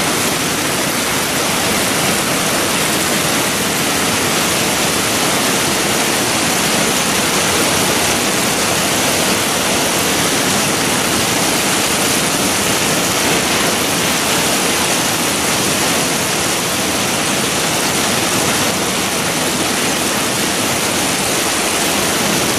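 Heavy rain mixed with hail pelting down, a loud, steady rushing hiss with no break.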